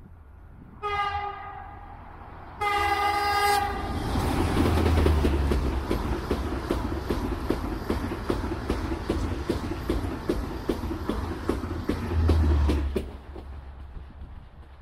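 A train horn sounds a short blast, then a longer one. The Talgo 250 'Strizh' passenger train then runs past at speed, with a rapid, even clatter of wheels over the rail joints over a rushing noise, fading out near the end.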